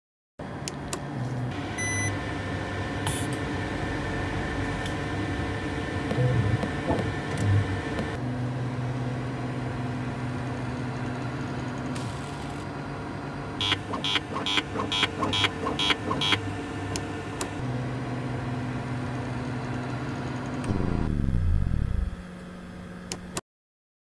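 Laboratory instrument running: a steady motor hum with scattered clicks, a quick run of short high beeping pulses, about three a second, in the middle, and a motor whine falling in pitch as it winds down near the end before the sound cuts off suddenly.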